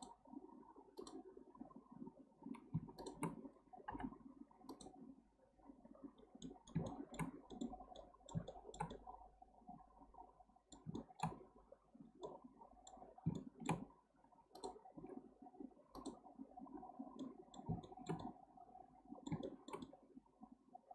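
Quiet, irregular clicking of a computer mouse, dozens of light clicks at uneven intervals, as the buttons are pressed while modelling in Blender.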